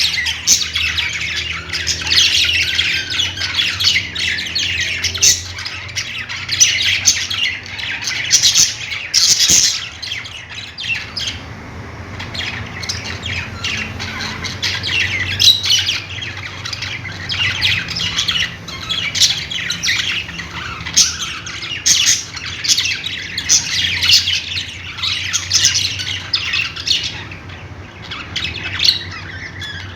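Several pet budgerigars chattering: a dense, continuous warble of overlapping chirps with frequent sharp, harsh squawks.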